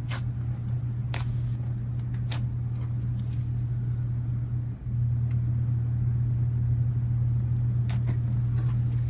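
A steady low hum, with a few sharp pops or clicks of slime being pressed and stretched by hand: three in the first few seconds and one near the end. The hum drops out briefly about halfway through, then comes back.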